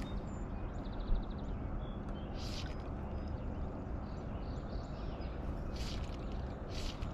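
Outdoor river ambience: a steady low background rumble with faint bird chirps and a short trill near the start, and a few brief hissing swishes about 2.5, 6 and 7 seconds in.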